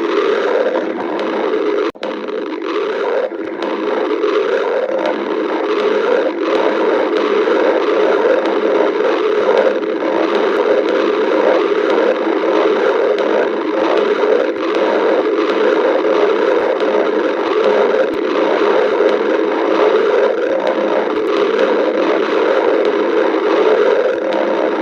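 Stomach growling: a loud, continuous gurgling rumble, with a brief break about two seconds in.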